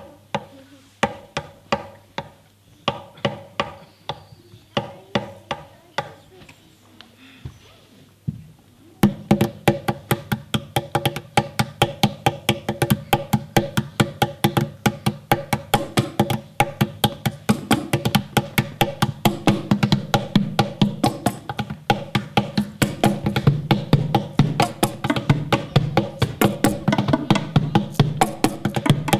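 Hand drums struck with bare hands in a rhythm. The strokes are spaced out at first, then from about nine seconds in they turn to a dense, fast, louder beat.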